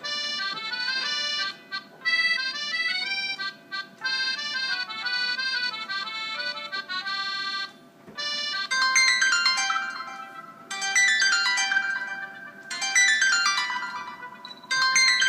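Stock ringtones of a Huawei Ascend Y330 Android phone playing one after another. A melody of quick synthesized notes ends about eight seconds in, and after a short pause a second ringtone starts, repeating a falling run of notes about every two seconds.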